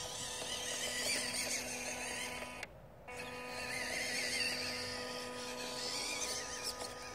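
Small electric RC truck's motor and gear drivetrain whining as it drives, a steady pitched whine with a wavering higher whine above it. It cuts out for about half a second near the middle, then picks up again.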